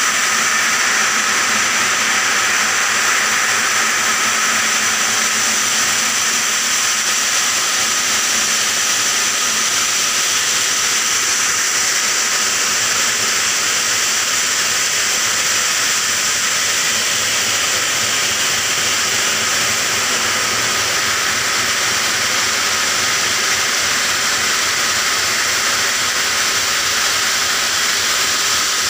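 Block-cutting saw's large circular blade grinding through a stone block: a steady, unbroken hiss with a few high whining tones.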